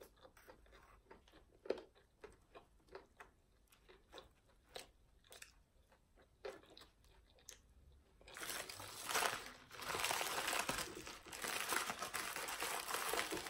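Close-up eating sounds: soft, scattered chewing clicks, then from about eight seconds in a much louder, dense crunching and crinkling, as of potato chips being eaten.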